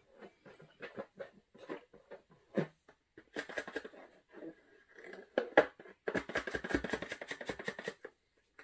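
Rapid tapping and clicking of hard objects, with a fast even run of about seven taps a second for roughly two seconds near the end.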